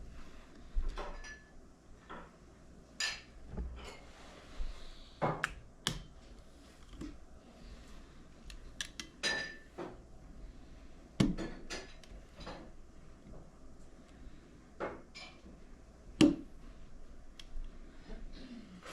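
Irregular metallic clicks, clinks and knocks of small steel parts as a part is worked back into place in a Monroe Model L-200 mechanical adding machine, with the sharpest knocks about 11 and 16 seconds in.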